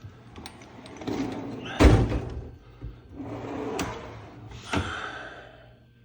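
Metal drawers of a Craftsman rollaway tool chest sliding on their slides, with a heavy thud nearly two seconds in as a drawer hits its stop, and sharp clicks near four and five seconds.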